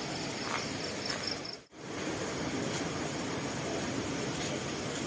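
Crickets trilling in fast, even pulses over a steady hiss. The sound cuts out for a moment about a second and a half in, and after that only the steady hiss remains.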